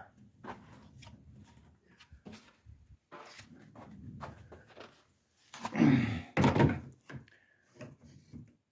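Wooden trim being handled and fitted on a pool table: scattered light knocks and clicks, with two louder thunks about six seconds in.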